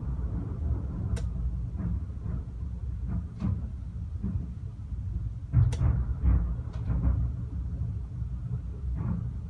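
Fireworks going off: a continuous low rumble of distant bursts with scattered sharp bangs, the loudest cluster about five and a half seconds in.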